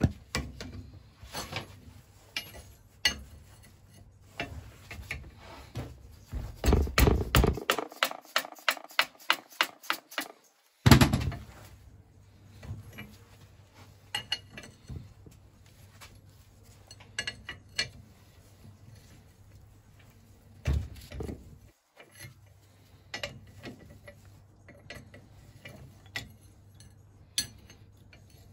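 Steel spanner clinking against the bolts and rusty cast-iron body of a Lister Q type vaporiser as it is stripped: scattered metallic clicks, a quick run of clicks partway through, and one sharp knock about eleven seconds in.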